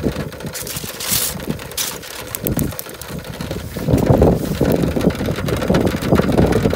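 Broth at a rolling boil in a foil pan on a portable gas cassette stove, mixed with wind buffeting the microphone. The sound gets louder about four seconds in, as the pan is approached.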